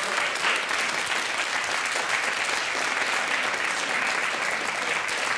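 Studio audience applauding, a steady, even clapping throughout.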